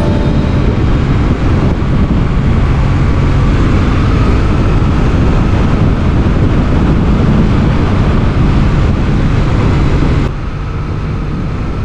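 Motorcycle engine running at road speed under heavy wind rush on the microphone. The sound drops suddenly about ten seconds in.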